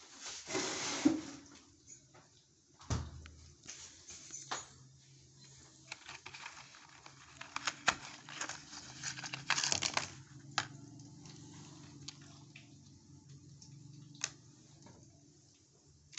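Cardboard tablet carton being handled and opened and plastic blister strips drawn out of it: rustling, scraping and scattered sharp clicks, loudest about a second in and again around ten seconds in. A low steady hum sits beneath through the middle.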